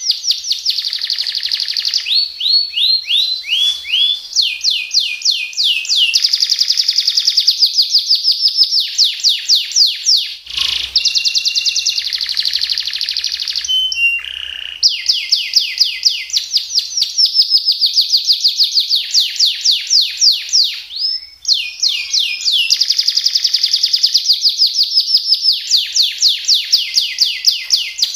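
Domestic canary singing, phrase after phrase of very fast repeated notes in long trills ('rolls'), some notes falling in pitch, with a few short breaks between phrases.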